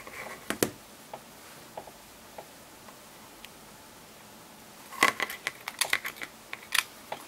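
Small sharp clicks and taps of phone parts and tools being handled during reassembly of a smartphone: a couple just over half a second in, a few faint ones after, then a quick cluster of clicks near the end.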